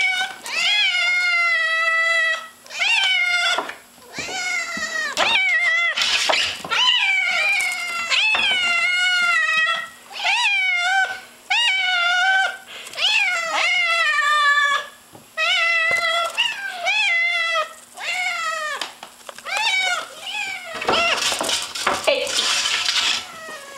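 Hungry kittens meowing insistently for food, a long run of loud meows one after another, each about a second long and rising then falling in pitch. A rustling noise comes in near the end.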